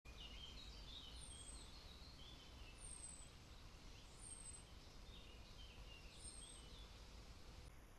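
Faint birdsong: a high, thin whistle falling in pitch, heard four times, with lower twittering in between, over a low steady rumble.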